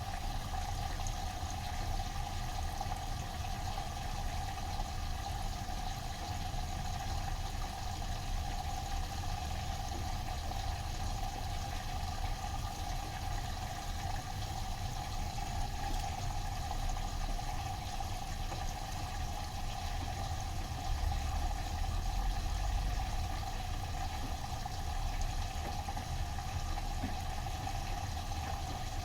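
Bosch washing machine running with a steady rush of water and a low rumble underneath.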